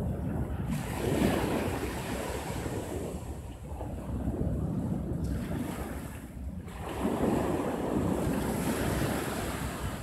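Small sea waves breaking and washing up a sandy beach, swelling about a second in and again around seven seconds, over a low rumble of wind on the microphone.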